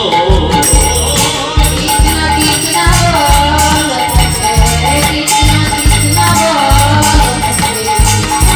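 Live devotional folk song: a man's voice singing with a harmonium, a dholak barrel drum beating a steady rhythm, and small hand percussion rattling along.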